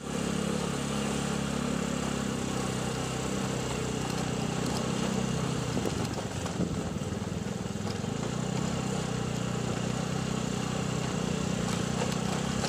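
Motorbike engine running steadily over outdoor background noise, with a brief knock about halfway through.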